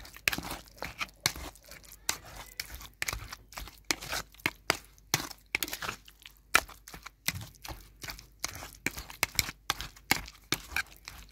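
A flat utensil mashing and scraping roasted eggplant bhorta against a metal bowl, mixing in the mustard oil: repeated wet squelching, scraping strokes, about three a second, uneven in strength.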